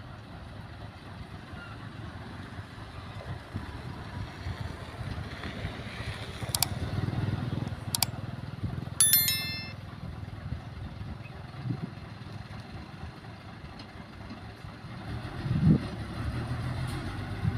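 Diesel engine of a Hyundai 5-ton dump truck running, swelling for a few seconds as the tipper bed comes down after unloading soil. About seven seconds in there are two clicks, then a short bell-like chime: a subscribe-button sound effect.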